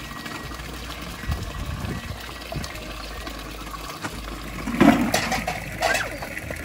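Water pouring steadily from a bamboo spout, with a few louder knocks about five seconds in.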